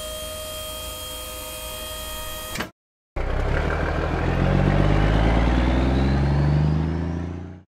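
Dump truck sound effects: a steady mechanical whine of the tipper bed lowering, cutting off abruptly about two and a half seconds in, then the truck's engine pulling away, its pitch rising as it accelerates, fading out at the end.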